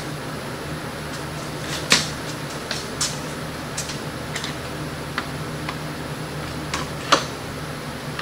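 One-hand bar clamps being set and squeezed tight on a bundle of PVC pipes against a wooden frame: scattered sharp clicks and knocks of the clamp jaws and pipes, over a steady background hum.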